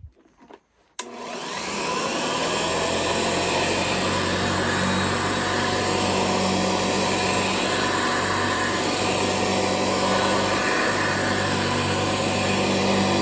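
Hoover Citation Model 64 upright vacuum cleaner switched on with a click about a second in, its motor spinning up with a rising whine and then running steadily.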